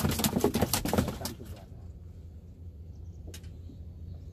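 Fishing rod and reel being handled: a rapid, irregular run of clicks and rattles for about a second and a half, then one more sharp click about three seconds in.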